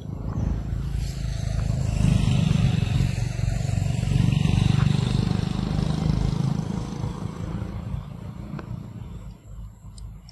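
A motor vehicle passing by: its engine hum swells over the first couple of seconds, is loudest for a few seconds, then fades away.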